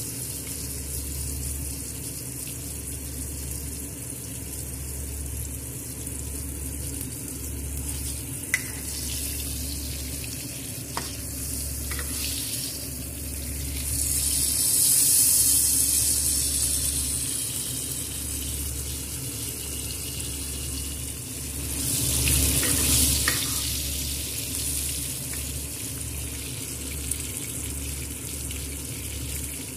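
Wagyu New York steak and whole garlic cloves sizzling in hot oil in a pan. The sizzle swells louder twice, about halfway through and again near three quarters of the way, as a wooden spatula works the steak, with a few light clicks in between.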